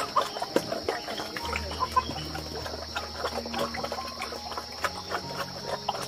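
Pigs eating at a trough, chewing with many small quick clicks, over a steady high-pitched drone of insects.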